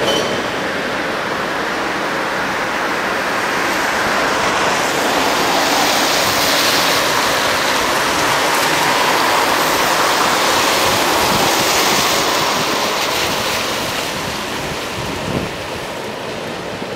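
Road traffic on a wet street: tyres hissing on the wet asphalt, swelling as vehicles pass and easing off after about twelve seconds.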